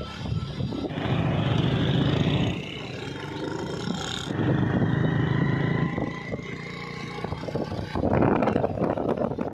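Motorbike engine running while riding along a road, with wind noise on the microphone; the sound swells and eases a few times.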